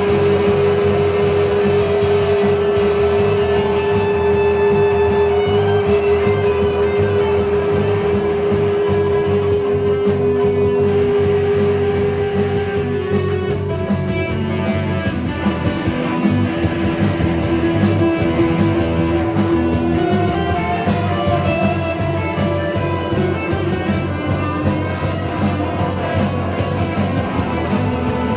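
Band playing live, guitar over a drum-kit beat. A long held note sounds through the first half and drops to a lower held note about halfway through.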